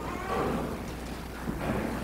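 Quiet church room tone during a silent pause: a steady low hum with two soft swells of faint rustling noise, about half a second in and again near the end.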